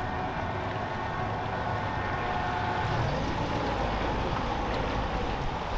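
Boat engine running at low speed, a steady rumble with a faint steady hum above it.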